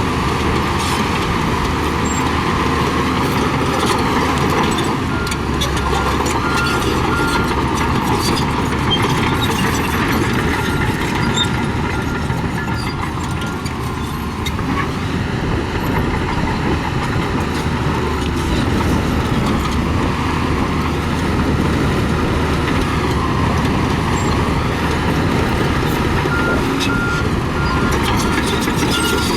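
Heavy diesel bulldozer engine running steadily under load. A reversing alarm beeps in a steady series about a fifth of the way in and again near the end.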